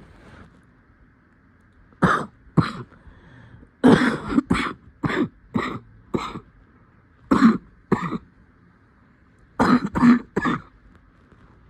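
A person coughing in fits: two coughs about two seconds in, a run of about six from roughly four to six seconds, two more near eight seconds, and three close together near the end.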